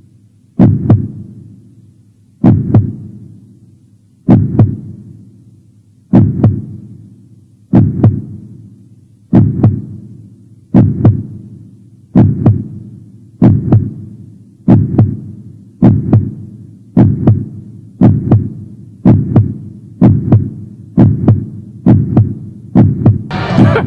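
Heartbeat sound effect: low double thumps (lub-dub) that speed up steadily, from about one every two seconds to about one a second.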